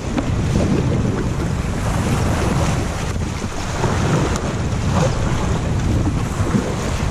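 Shallow river rapid rushing around a kayak hull as it runs the riffle, with paddle strokes splashing and wind buffeting the head-mounted action camera's microphone.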